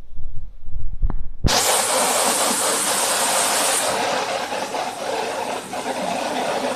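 Adhesive-tape slitting and rewinding machine running: a loud, steady hiss of tape unwinding and being cut. It starts suddenly about a second and a half in, and is hissier at first. Before it comes a low rumble with a single knock.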